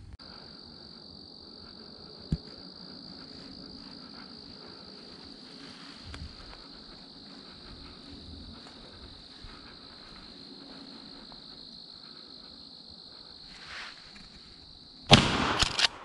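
Steady high drone of insects such as crickets through most of the stretch, with one sharp snap about two seconds in. Near the end comes a single very loud shotgun shot, followed by a quick run of sharper, fainter cracks for about a second.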